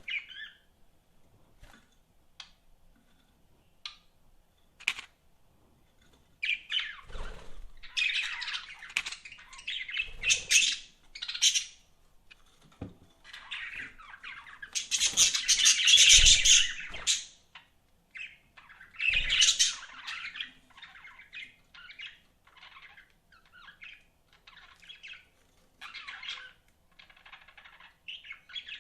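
Budgerigars chirping and chattering: a few short calls at first, then dense warbling and squawky chatter that comes in bursts, loudest about halfway through, and thins to quieter chirps near the end.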